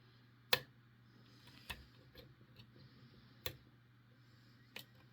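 A lock pick and tension wrench working the pins of a Ruko 5-pin cylinder with ASSA-style barrel spools, giving four sharp metallic clicks spaced one to two seconds apart, with fainter ticks between them.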